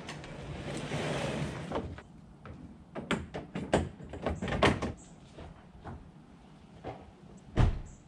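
Handling noise: a scraping slide lasting about two seconds, then a string of knocks and clicks, and one loud thump near the end.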